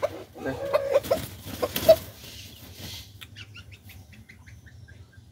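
Chickens clucking and squawking, with a brief flurry of wing flapping about a second in and the loudest squawk near two seconds; then a run of quieter short clucks.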